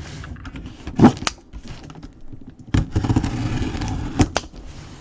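A cardboard box being handled and opened: sharp knocks about a second in and again near the end, with a stretch of scraping and rustling in between.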